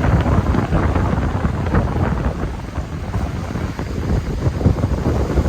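Wind buffeting the microphone in a rough, gusty rumble, over the rush of the sea.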